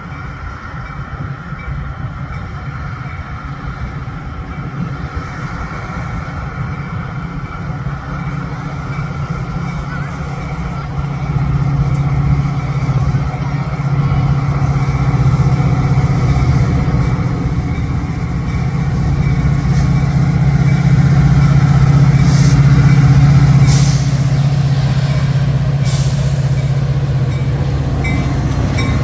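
Diesel locomotive engine running with a steady low drone that grows louder, with a few short air hisses near the end.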